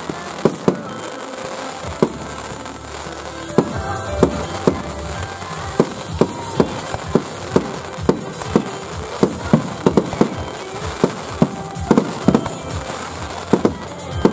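Aerial fireworks bursting overhead in a rapid, uneven string of sharp bangs, about two or three a second.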